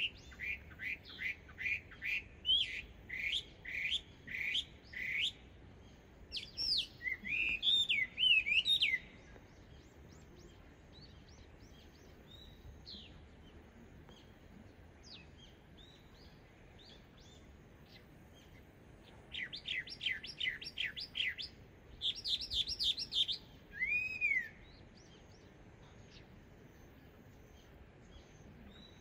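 Chinese hwamei singing in two loud bouts, each a fast run of repeated rising whistled notes breaking into louder, varied ringing phrases. The bouts are separated by a pause of about ten seconds with only faint scattered chirps, and the second bout ends on a single arched whistle.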